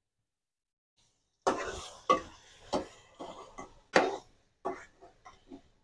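A metal spoon scraping and knocking against a metal pot while yogurt is stirred into frying minced mutton. It makes an irregular string of clicks and scrapes that starts about a second and a half in.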